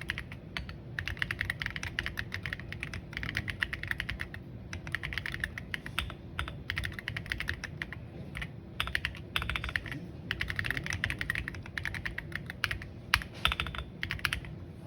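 Typing on a Monsgeek M1W mechanical keyboard with force-break-modded MMD Princess 60 g tactile switches and Maxkey SA keycaps: fast runs of keystrokes broken by short pauses, with a few louder single strokes near the end.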